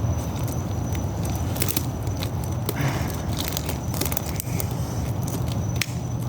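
Rubber bands being stretched and let go onto a watermelon, making scattered short snaps, slaps and rubbing noises over a steady low hum.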